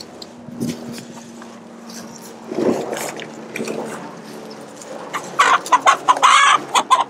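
Chickens clucking quietly, then about five seconds in a hen breaks into loud, rapid squawking, the alarm a hen gives when she is grabbed and picked up.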